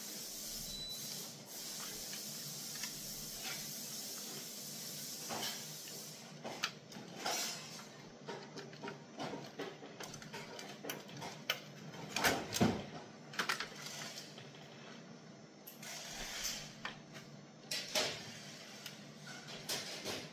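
Cable connectors and plastic chassis parts of a GE MAC 2000 ECG machine being handled during reassembly: scattered small clicks, rattles and knocks, the loudest about twelve seconds in. For the first five or six seconds a steady hiss sits underneath.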